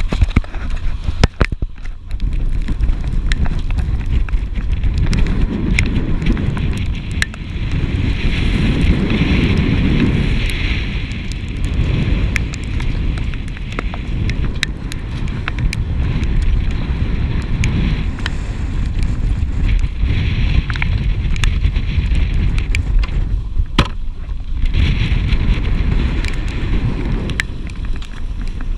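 Wind buffeting the microphone over a steady low rumble, with the hiss swelling and easing and scattered sharp clicks and knocks.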